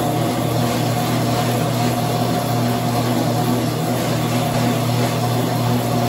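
Motorized treadmill running, a steady mechanical hum over an even hiss, as a sheep walks on it.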